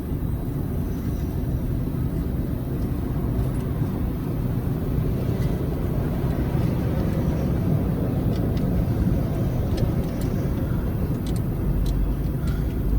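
Steady low rumble with no clear pitch, with a few faint short clicks in the second half.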